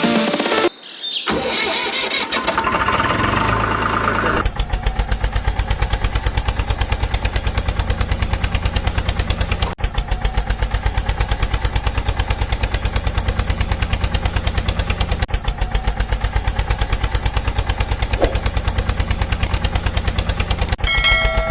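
A small engine starting, then idling with a fast, even beat. A short pitched tone like a horn sounds near the end.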